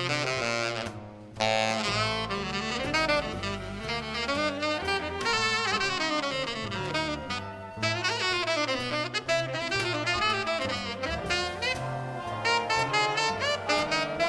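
Big band jazz: saxophones and brass playing over a bass line, with the band breaking off for about half a second about a second in before coming back in.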